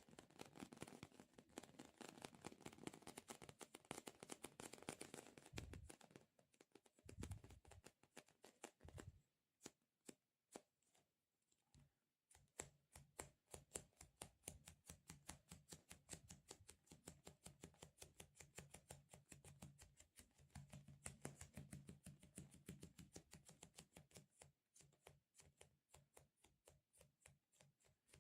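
Close-miked ASMR handling sounds: soft sticky crackles with a few dull thuds, then a quick, even run of crisp little clicks, several a second, from about halfway through.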